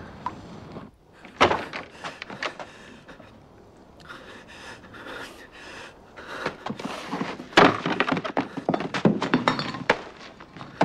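A sharp thunk about a second and a half in, then scattered knocks, and a busy run of clattering knocks and clicks from about six seconds in to near the end.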